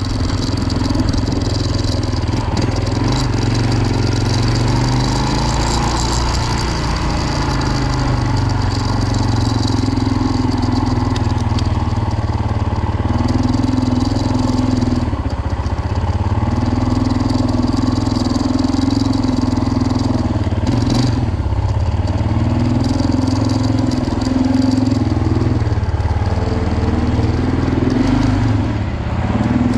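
Suzuki DR650's single-cylinder four-stroke engine running as the bike is ridden at low speed, its note swelling and easing several times in the second half. The engine is running properly on a freshly rebuilt carburetor.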